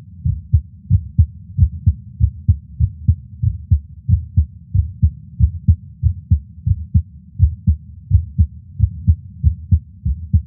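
A man's resting heartbeat heard through a digital stethoscope: a steady rhythm of deep, paired lub-dub thumps.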